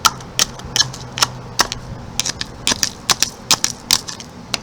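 Ice being chipped and broken off a frozen block: about a dozen sharp, irregular clicking strikes, roughly three a second.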